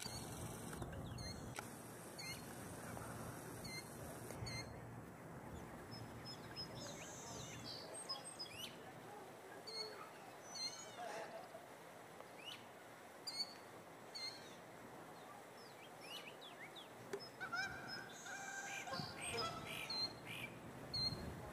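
Birds calling outdoors: many short, high chirps and whistles scattered throughout, with a louder, lower honking-type call with several overtones near the end.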